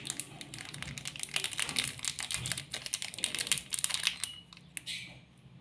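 Rapid crinkling and clicking of a small seasoning sachet being handled and shaken as its powder is poured out. The clicking thins out after about four seconds.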